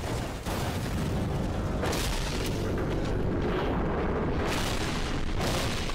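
Explosions and booms from an animated battle scene's soundtrack over a continuous low rumble, with fresh blasts about half a second, two seconds and five seconds in.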